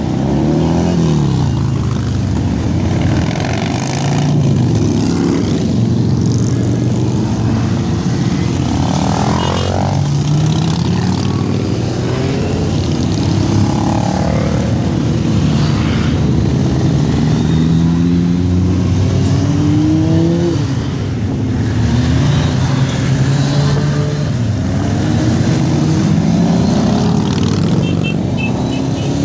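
Motorcycles riding past one after another in a continuous procession, a mix of sports, touring and cruiser bikes. Their overlapping engine notes rise and fall in pitch as each bike passes and pulls away.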